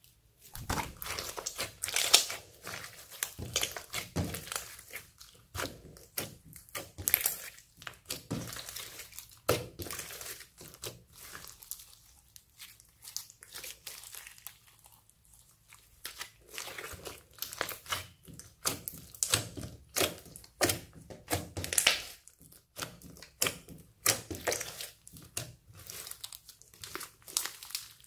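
Slime being squished, stretched and mixed by hand: dense, irregular sticky crackling and popping, thinning out for a few seconds about halfway through.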